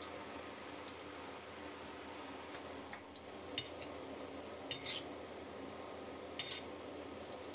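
Beaten egg deep-frying in a pan of hot oil with a steady sizzle, and a metal spatula scraping and tapping against the pan a few times in the second half.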